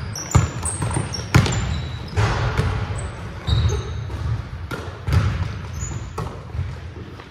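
Basketball bouncing on a hardwood gym floor, with irregular thuds about a second apart echoing in a large hall, and the short high squeaks of sneakers on the court.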